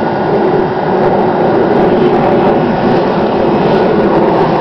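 Steady, loud mechanical noise with a constant low hum.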